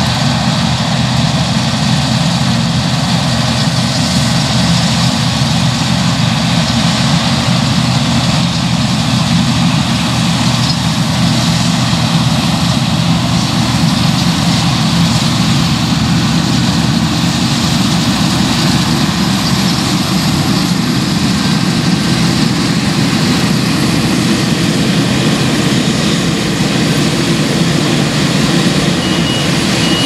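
Claas Lexion 760 combine harvester running under load as it cuts and threshes wheat: a steady drone of its engine and threshing machinery that does not change.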